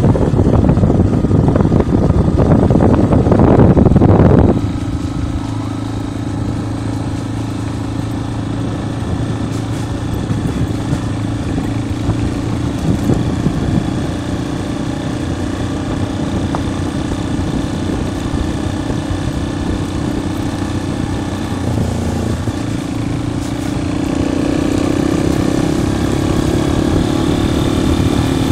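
Vehicle engine running steadily while driving along a dirt road, with heavy wind buffeting on the microphone for the first four seconds. The engine note rises slightly and gets louder near the end.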